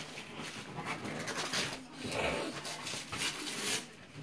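Wrapping paper crinkling and rustling as a present is unwrapped by hand, in uneven bursts.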